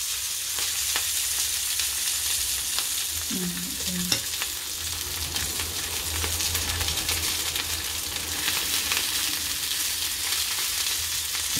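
Sausages frying in oil in a nonstick frying pan on low heat: a steady sizzle with scattered small crackles and pops of spitting fat. The heat was turned down because the sausages were bursting.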